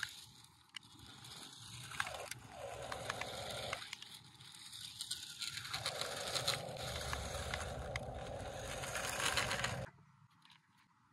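Small RC rock crawler driving over loose gravel, its tyres crunching and scraping with many small clicks, rising and falling as it moves. The sound cuts off suddenly near the end.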